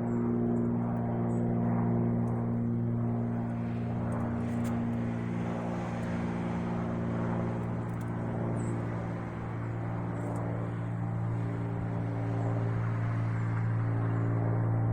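Small private airplane's engine droning overhead as it circles, a steady hum with several pitched tones that shift slightly in pitch.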